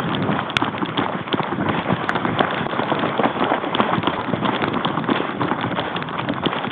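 Running footsteps on rough ground, with clothing and gear rustling in a dense, uneven patter.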